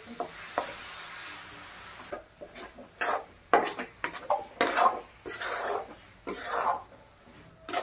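Flat metal spatula scraping and stirring a thick coconut-and-sugar mixture round a metal kadhai, a steady hiss for the first two seconds and then a series of separate scraping strokes. The mixture is stirred constantly so it does not stick to the bottom and brown while it dries and thickens.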